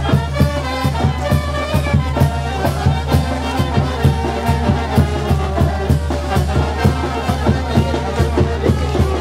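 Festive band music with brass playing a melody over a steady, quick drum beat.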